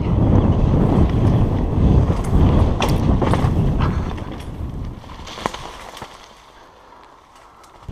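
Mountain bike riding fast down a dirt trail: wind buffeting the camera microphone over the rumble of tyres on dirt, with a few sharp clicks and rattles. The noise eases off after about four seconds as the bike slows.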